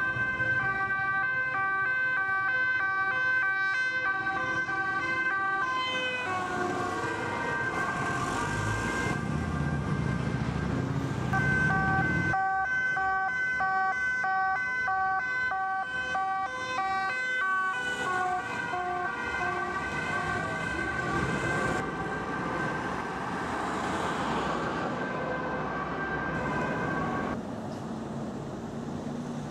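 Dutch police sirens sounding as police cars drive past on urgent calls, the siren alternating between two notes, with traffic and engine noise beneath. About 27 seconds in the siren stops and only traffic noise remains.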